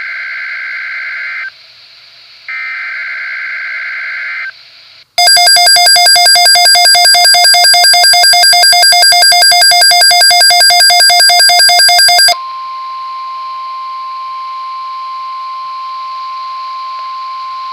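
NOAA Weather Radio alert sequence: two screeching digital SAME header bursts, then a very loud rapidly pulsing buzzer alarm for about seven seconds, then a steady single-pitch warning alarm tone that begins about twelve seconds in. Together they announce a severe thunderstorm watch.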